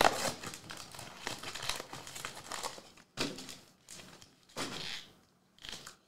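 Foil wrappers of Trilogy hockey card packs crinkling as hands pick up and shuffle a stack of packs, in irregular bursts with short pauses.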